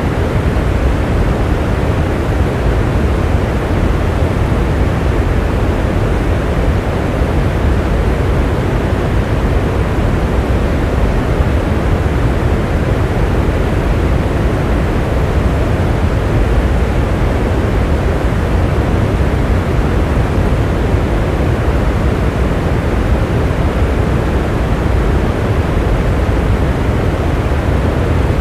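Steady rain: a dense, even rushing noise with a deep low rumble, with no separate drops, thunder or breaks.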